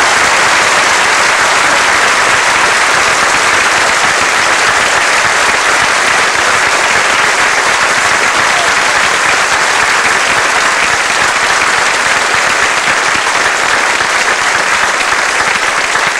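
Theatre audience applauding, a loud, steady wash of clapping.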